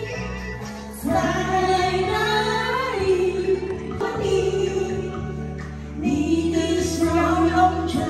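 A woman singing karaoke into a handheld microphone over backing music, with new sung phrases starting about a second in and again about six seconds in.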